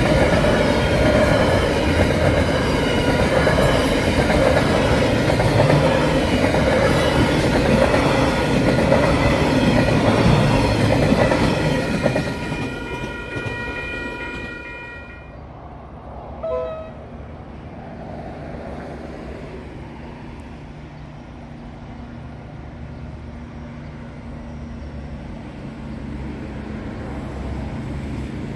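Container freight train wagons rolling past close by, a loud steady rumble with wheels clattering and squealing on the rails. About twelve seconds in the last wagons pass and the sound fades away, leaving a few seconds of high ringing tones. Near the end a distant freight locomotive's low engine hum slowly grows as it approaches.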